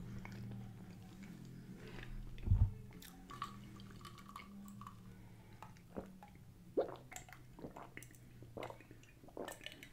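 Close-up mouth sounds of a person chewing food, then short swallowing clicks as she drinks water from a glass jar. A single low thump comes a couple of seconds in, over a low steady hum.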